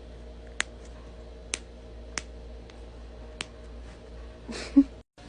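Joints cracking: a run of sharp single pops about a second apart, then a louder crack with some rustling near the end. The sound cuts off abruptly just before the end.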